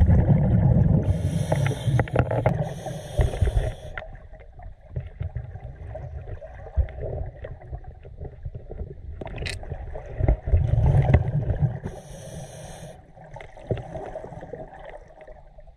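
A scuba diver's regulator heard underwater: bubbling surges of exhaled air alternating with hissing inhalations, about two breath cycles, muffled as heard through a waterproof camera housing.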